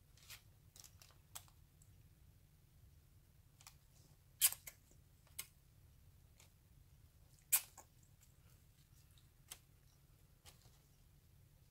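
Faint, scattered small clicks and taps of hands handling things at a resin-pouring work table, about ten in all, two of them louder about four and a half and seven and a half seconds in, over a faint low hum.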